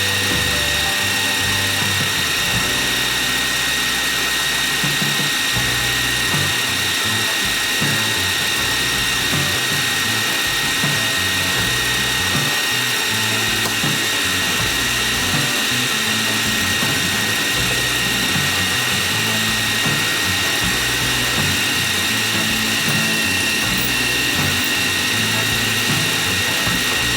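Metal lathe running steadily while turning a part, a continuous motor and gear whine over a hiss of cutting.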